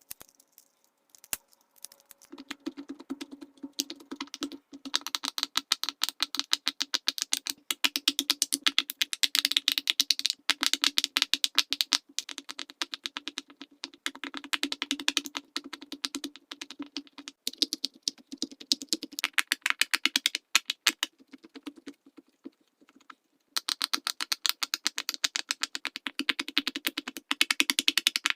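Bubbles of a large silicone pop-it fidget toy being pushed through one after another, a rapid run of small pops. The popping starts sparsely, then runs fast, stops for about two seconds around three quarters of the way through, and picks up again.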